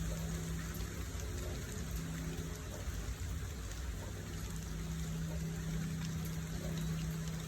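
Steady hiss of rain or running water with faint scattered drip ticks, under a low steady hum that drops out for about two seconds near the middle.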